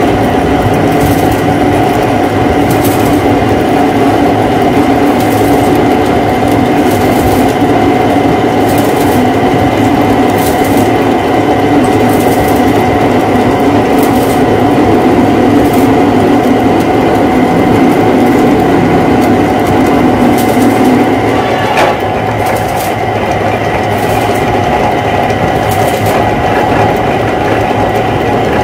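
Metal lathe running steadily while a single-point tool cuts a coarse thread into a metal bar, with a faint tick about once a second. About three-quarters of the way through, the lower part of the sound drops off after a click, as the cut eases.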